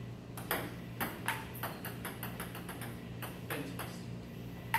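Table tennis serve and rally: the celluloid ball clicks sharply off the paddles and table, a quick run of hits a few tenths of a second apart.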